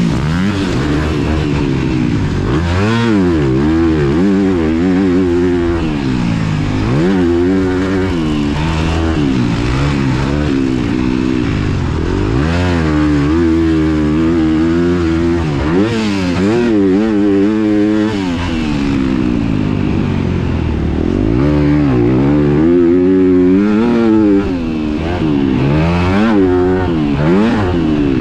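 2023 Honda CRF250R's single-cylinder four-stroke engine being ridden hard, revving up and easing off again and again as the throttle is opened and shut. The pitch rises and falls every second or two throughout.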